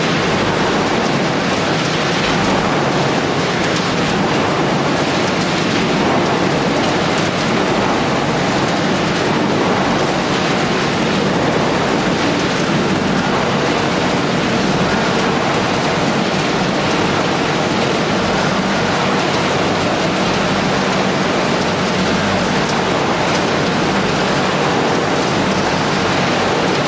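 Machinery of a Tyrannosaurus waste-shredding line running, with the Monster 9905Z shredder and its steel conveyors: a loud, steady industrial din without breaks.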